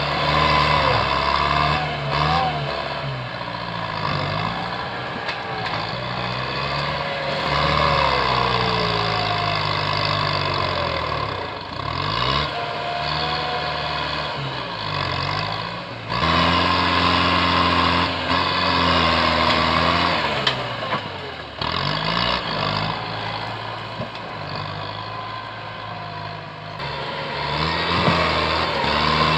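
Tractor diesel engine working hard as the tractor pushes brush and small trees with a front blade. Its pitch rises and falls again and again as the revs change under load, with a few sharp knocks along the way.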